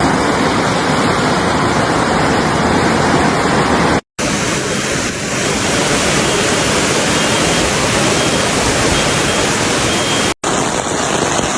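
Loud, steady roar of rushing floodwater. It breaks off abruptly twice, about four seconds in and near the end, as one piece of footage is cut to the next.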